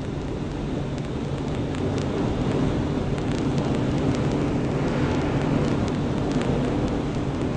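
Pneumatic forging hammer running: a steady mechanical drone from its motor and air compressor, with scattered light clicks and no distinct heavy blows.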